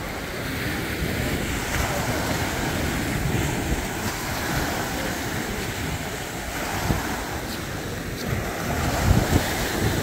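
Small sea waves breaking and washing up onto a sandy shore, with wind buffeting the microphone in low thumps, strongest about nine seconds in.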